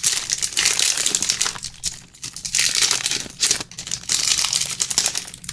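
Foil trading-card pack being crinkled and torn open by hand, in several bouts of crackling with short pauses between.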